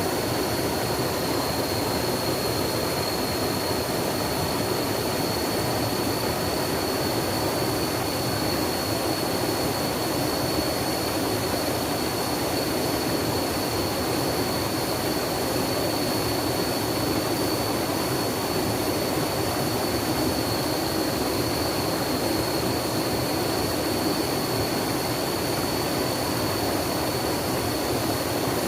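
Steady rushing of flowing water, an even continuous wash with no breaks, with a thin high steady tone running beneath it.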